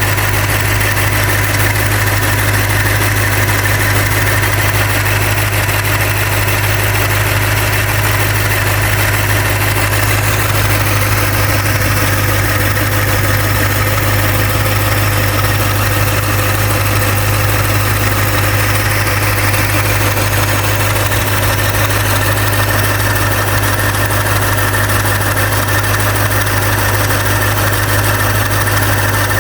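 Toyota Celsior's 4.3-litre V8 idling steadily, a constant low hum with a steady high whine over it.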